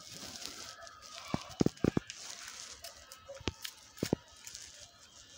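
Scissors cutting folded colour paper: several short, sharp snips of the blades closing, in a quick cluster near the start and a few more later, with light paper rustling between.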